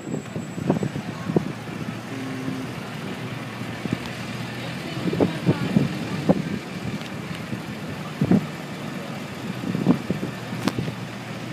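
Fire company pickup truck and other parade vehicles rolling slowly past at walking pace, engines running.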